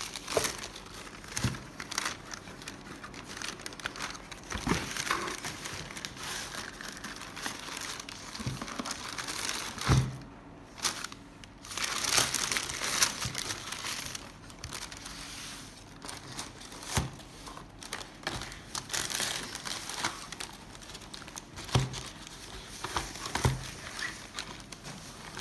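Tissue paper crinkling and rustling as hands dig through and unwrap the packing paper inside a cardboard shoebox, with a few sharp knocks in between, the loudest about ten seconds in.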